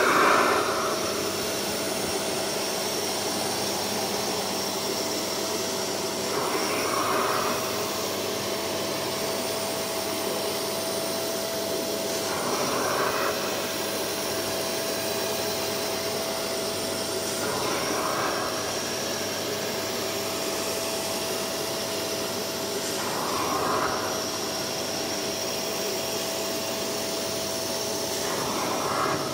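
Spray-extraction carpet cleaner's suction motor running steadily with a constant whine. A rushing hiss swells for about a second roughly every five to six seconds as the clear plastic nozzle is drawn across the fabric car mat.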